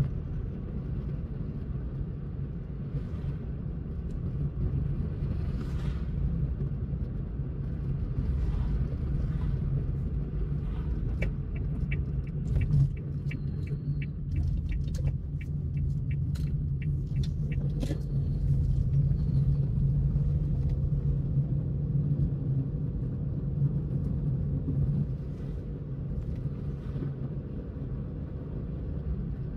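Car driving along a road: a steady low rumble of engine and tyres with an even hum. For several seconds around the middle, a run of quick, even clicks sounds over it, about three a second.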